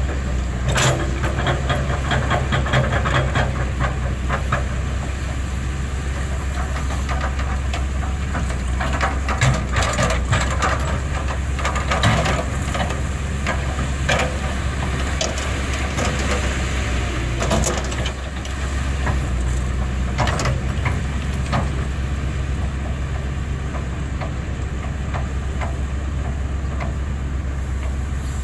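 Caterpillar 320 hydraulic excavator's diesel engine running steadily under digging load, with irregular clanks, knocks and scraping from the bucket working in the dirt several times.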